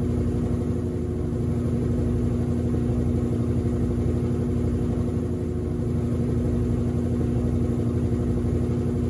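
Top-loading washing machine in its spin cycle, the basket spinning fast with a steady motor hum over a low rumble.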